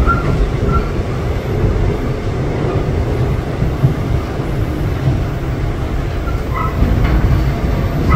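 Older Seoul subway Line 4 train (set 404, with a Mitsubishi GTO inverter) running between stations, heard from inside the car. A steady low rumble of wheels on rail and running gear, with a few faint short squeaks and clicks.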